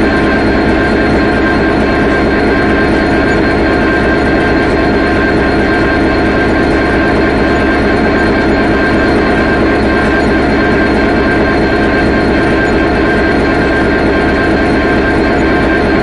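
Diesel locomotive engine idling: a steady, unchanging drone with constant higher tones over it.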